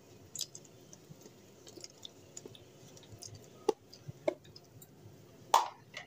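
Thick green yogurt chutney poured from a small bowl onto boiled chickpeas and potatoes: faint wet squishing, with a few light clicks of the bowl and spoon, the sharpest about five and a half seconds in.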